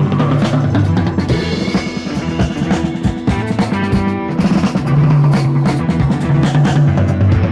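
Background music with drums and bass.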